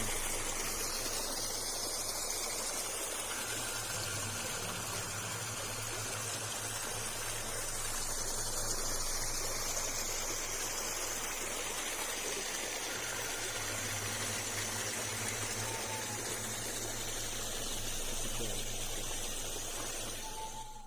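A steady rushing noise with a low hum beneath it, cutting off abruptly at the very end.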